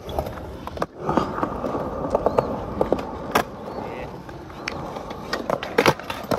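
Skateboard wheels rolling on concrete, with a few sharp clacks of the board; the loudest clacks come about three and a half seconds in and near the end.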